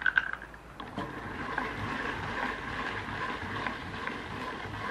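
Hand-cranked rotary nut grater grinding walnut kernels: a steady mechanical rasping churn. A few sharp knocks come right at the start, and the grinding settles in from about a second in.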